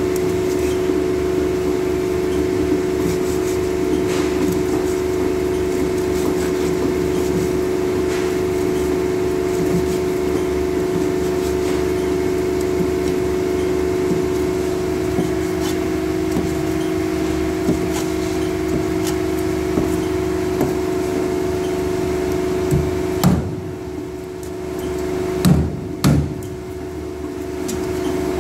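Meat cleaver chopping a whole fish into steaks on a plastic cutting board: short knocks every few seconds over a steady machine hum. The background hiss drops away late on, and a few louder chops land near the end.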